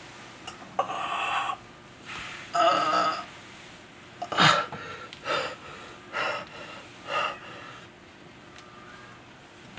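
A man gasping and breathing hard, about six ragged breaths in a row, the loudest near the middle, then only a low background for the last couple of seconds.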